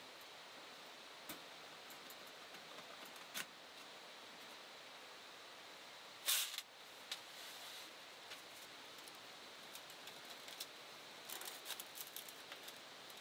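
Scattered light clicks and rustles, with one louder brief rustle about six seconds in and a run of small clicks near the end, over a steady faint hiss.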